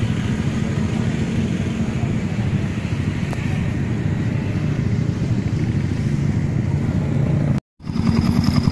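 Yamaha R15's single-cylinder four-stroke engine idling steadily through a Sakura AR09 aftermarket racing exhaust, a calm note that is not noisy. Near the end, after a brief drop-out, the exhaust beat comes in louder and more distinct.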